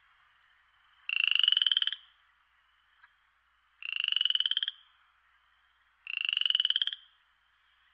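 A frog calling three times, each call a rapid pulsed trill just under a second long with a slight rise in pitch, repeating about every two and a half seconds.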